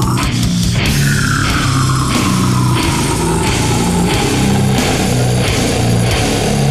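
Loud heavy rock music with driving bass, drums and guitar. About a second in, a high sliding tone falls slowly in pitch over several seconds.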